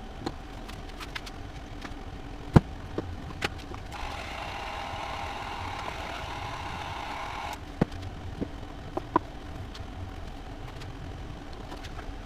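Scattered small clicks and knocks of tools and wiring parts being handled, the loudest about two and a half seconds in, over a low steady hum. Around the middle a steady rushing noise runs for about three and a half seconds, starting and stopping abruptly.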